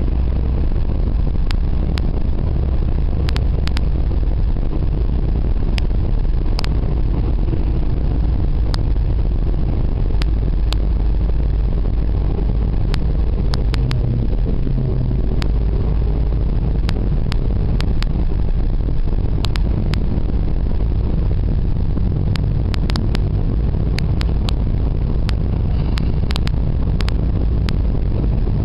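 Steady low road and engine rumble of a moving vehicle heard from inside its cabin, with frequent brief clicks or rattles scattered throughout.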